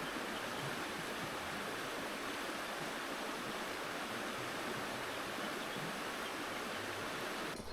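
Steady rush of flowing water from a river or stream. It cuts off abruptly near the end.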